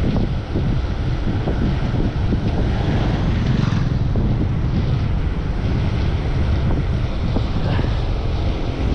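Wind buffeting the microphone: a loud, steady rumble with no clear tones.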